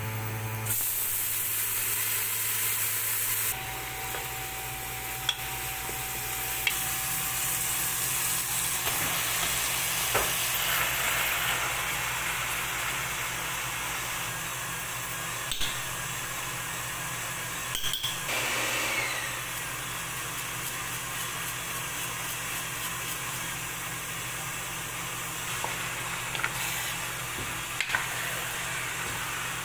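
Garlic, onion and ground beef sizzling in oil in a metal pot while being stirred, with scattered clicks of a wooden spatula against the pot and a steady low hum underneath.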